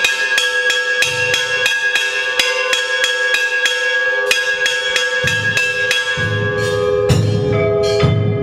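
Metal bells struck rapidly and evenly, about four strokes a second, each stroke leaving a steady ringing tone, as at a Hindu aarti. From about five seconds in a drum beats along with them, and a bell of another pitch joins near the end.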